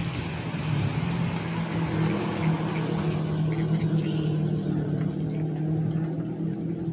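An engine running steadily at constant speed: an even, low hum that does not rise or fall, over a soft background hiss.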